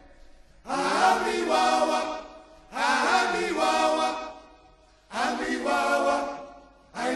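Sung chant by voices without instruments, in short phrases of about a second and a half each, separated by brief pauses as each phrase fades away.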